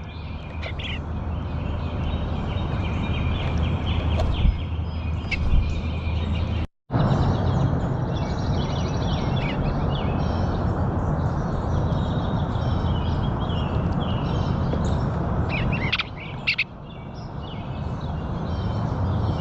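Small birds chirping and twittering repeatedly over a steady low background rumble, with a brief cut to silence about a third of the way through.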